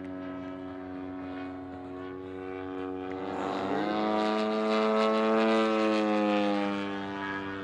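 100cc gasoline engine and propeller of a giant-scale AeroWorks Yak 55M RC aerobatic plane in flight, a steady buzzing drone. About three seconds in the note climbs in pitch and gets louder, then it settles back down near the end as the plane manoeuvres.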